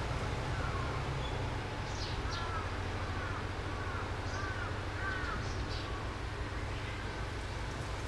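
Wild birds calling: a run of about six short, arched calls close together in the first half, with faint higher chirps among them, over a steady low rumble.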